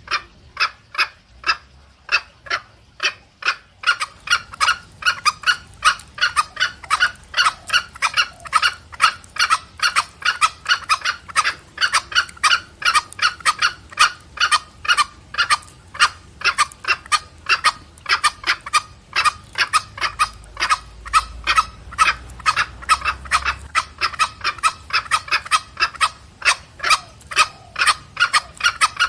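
Green junglefowl, male and female, calling back and forth with the rapid 'petrek' clucking call: a long string of short, sharp notes, sparse for the first few seconds and then about three or four a second.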